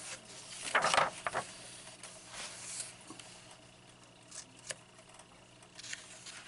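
A paper page of a coloring book being turned, a short rustle about a second in, followed by fainter brushes and a light tick of hands moving on the paper.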